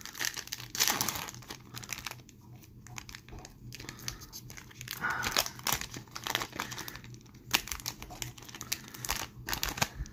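Foil wrapper of a trading-card pack being torn open and crinkled by hand: irregular crackles and rips throughout.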